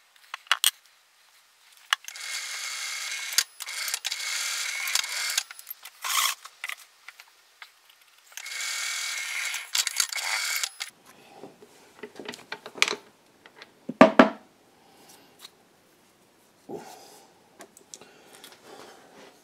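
Twist drill cutting through a metal bar clamped in a vise: two drilling passes of about three seconds each, a steady grinding hiss with a faint whine in it. Then scattered metallic clinks and rustling as the chips are brushed off, with one sharp knock about fourteen seconds in.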